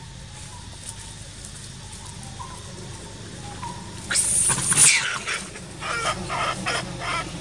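A steady low background for about four seconds, then one short, loud, harsh animal call, followed by a run of short repeated calls, about three a second.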